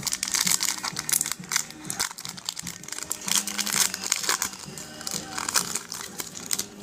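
Foil trading-card pack wrapper being torn open and crinkled by hand, in quick irregular crackles over background music.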